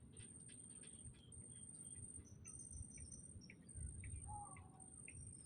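Faint insect chirping: a high, steady trill broken by short gaps, with scattered short chirps over a low rumble.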